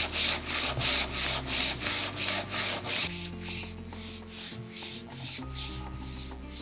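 325-grit sandpaper on a rubber hand sanding block rubbed quickly back and forth over a dried polyurethane finish on a wooden tabletop, about four strokes a second. The strokes grow lighter about halfway through. This is sanding between coats to knock off the little bumps in the cured finish.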